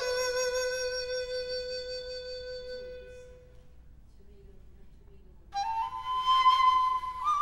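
Bass dadi, a large Chinese bamboo flute, playing a slow passage: a long low note fades away over the first few seconds, a near-silent pause follows, then about two-thirds through a breathy note slides up and is held.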